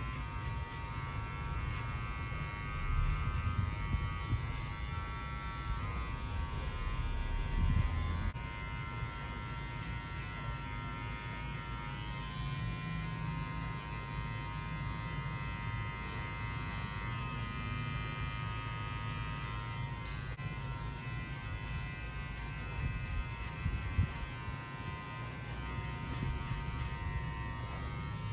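Electric hair clippers running with a steady buzz while cutting hair, with a few brief low bumps from the clipper against the head.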